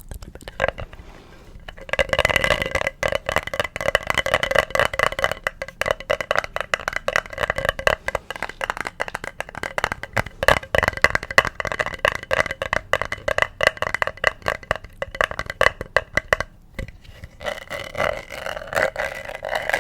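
Rapid close-miked tapping and scratching on an object, a dense run of clicks with a ringing tone behind them. It breaks off briefly about three-quarters of the way through, then starts again.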